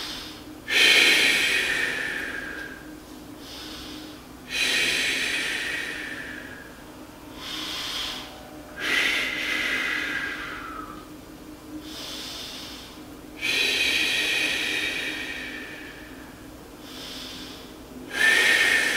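A man's slow, deep breathing, in through the nose and out through the mouth: five long, loud breaths about four seconds apart, with shorter, quieter breaths between them.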